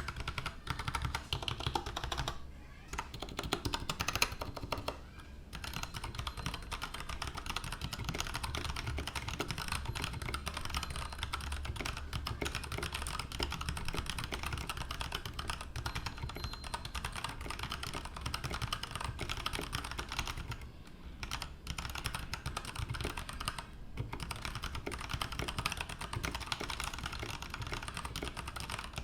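Typing on an Anne Pro Wireless RGB mechanical keyboard with Kailh Box Burnt Orange switches and Tai-Hao keycaps: a steady rapid stream of key clacks, broken by a few short pauses.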